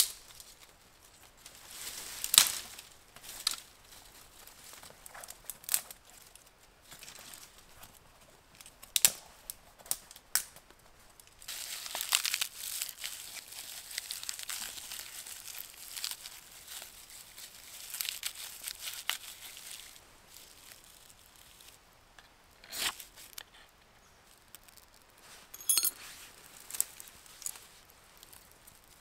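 Dead twigs snapped by hand, sharp cracks a few seconds apart, then dry papery bark crumpled and torn between the hands as fire tinder, a long rustling crinkle. A short rasping scrape follows near the end.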